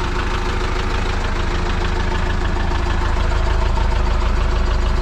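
Flatbed tow truck's engine idling steadily, with an even low pulsing, growing louder about three seconds in.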